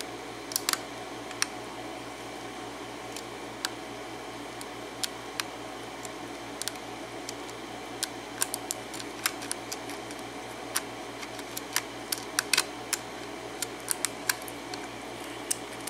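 Lock pick clicking against the pins of a Defiant five-pin lock during single-pin picking: irregular sharp clicks, one or two a second, over a steady background hum.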